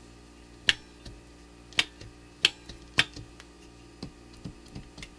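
Sharp clicks of the test and reset buttons being pressed on portable GFCI cord units, with the units' internal contacts snapping as they trip and reset. Four loud clicks in the first three seconds, then fainter ticks.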